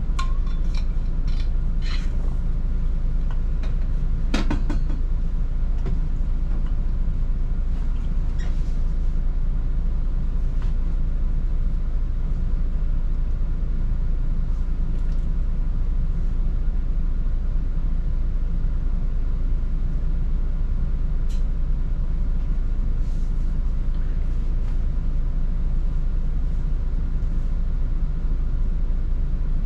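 Volvo 8900 bus driving, heard from inside: a steady low engine and road drone, with scattered short clicks and rattles, most of them in the first few seconds.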